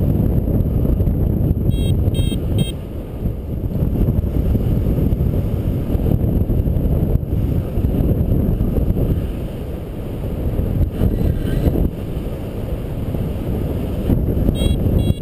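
Wind buffeting the microphone during a paragliding flight: a steady, low rushing noise that swells and eases. A few short high beeps come in two brief runs, about two seconds in and again near the end.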